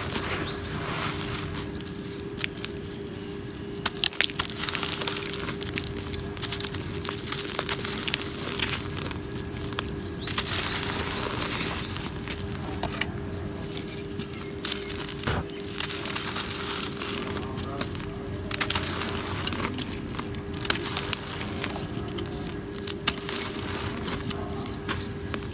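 Dry, gritty cement lumps crumbling and crunching as hands squeeze and break them, with many small sharp cracks and powder sifting through the fingers. A faint steady hum runs underneath. A brief high chirping comes twice, about a second in and again about ten seconds in.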